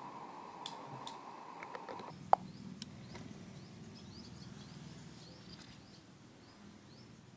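Small DC motor spinning a plastic propeller, a steady high whine that stops about two seconds in with a sharp click. After that, birds chirp repeatedly over a low outdoor murmur.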